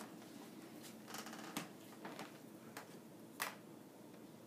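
Faint room hiss with a few soft, short clicks and taps, the sharpest about three and a half seconds in.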